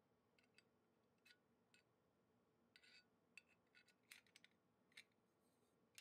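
Near silence broken by faint, scattered light metallic clicks and clinks as a hand-forged iron padlock and its key are handled.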